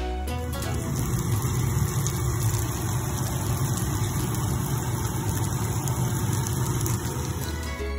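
Salmon fillets frying in butter in a pan: a steady sizzle over a low, even hum.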